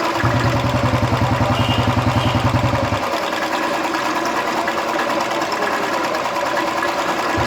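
Royal Enfield 350 Electra's single-cylinder four-stroke engine idling with an even beat and no tappet tapping: oil is flowing again through the oil hole whose blockage had caused the noise. The engine beat sounds deeper and heavier for about the first three seconds, then lighter.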